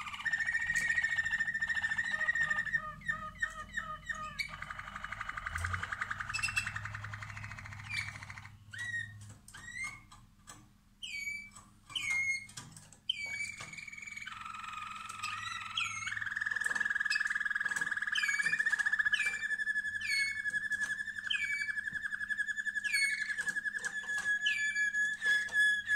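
Canaries singing: long, steady rolling trills, and runs of short repeated falling notes about half a second apart.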